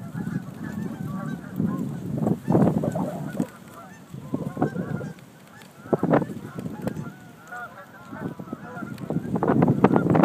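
Geese honking over and over, several calls overlapping, with gusts of wind buffeting the microphone.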